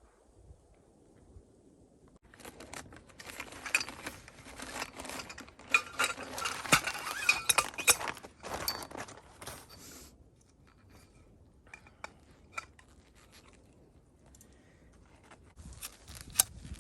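Snow crunching and scraping as it is scooped and packed by hand over a stick buried as a tent anchor, for several seconds, then again briefly near the end.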